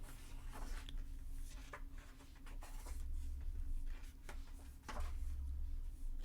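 Pages of a photobook being turned and handled: a string of short papery rustles with a few soft low bumps.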